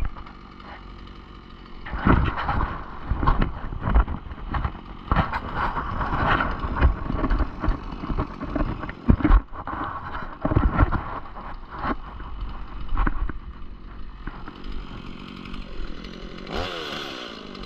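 Stihl MS 180 two-stroke chainsaw running at low speed under a run of irregular knocks and thumps, then revving up and down several times near the end.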